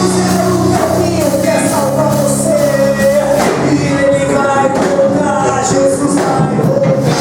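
Gospel band music: a sung melody line over held low notes and drums.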